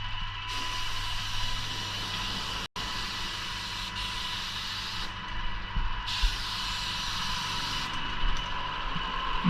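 Paint spray gun hissing as woodwork is sprayed, in two passes: a long one of about four and a half seconds, then a shorter one of nearly two seconds. A steady machine whine and hum runs beneath.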